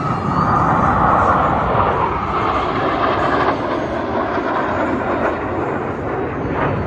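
Roar of Blue Angels F/A-18 Super Hornet jets flying past. It swells in at the start, is loudest for the first few seconds, then eases slightly.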